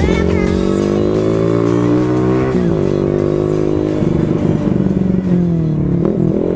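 Rusi Korak 110cc single-cylinder engine running loud through an open, unsilenced aftermarket exhaust, held at raised revs. The revs drop about two and a half seconds in, are blipped unevenly in the middle, sag, and come back up near the end.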